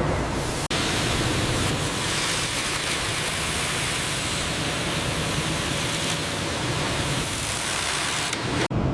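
Steady, dense hissing noise of sawmill machinery, broken by two brief dropouts, about a second in and near the end.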